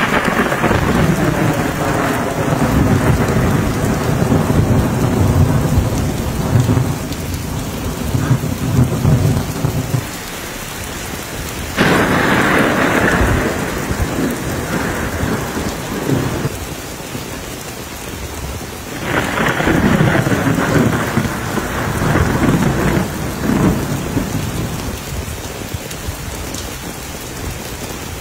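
Heavy rain pouring down during a thunderstorm, with three rolls of thunder: one at the start, one about twelve seconds in and one about nineteen seconds in, each starting suddenly and rumbling on for several seconds.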